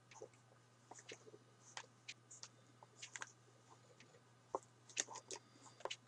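Near silence: a faint steady low hum with scattered small clicks and ticks.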